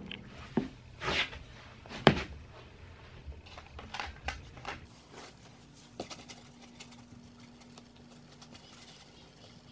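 A few scattered knocks and taps, the loudest about two seconds in, then a faint steady hum with a single click.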